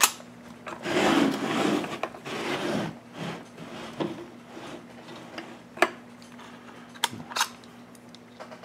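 Hands handling a chainsaw powerhead: a rustle of handling for about two seconds, then a few scattered light clicks and taps.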